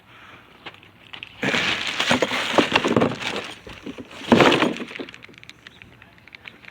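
Hard objects clattering and clinking in two bouts, a longer rattle about one and a half seconds in and a shorter, louder burst near the middle.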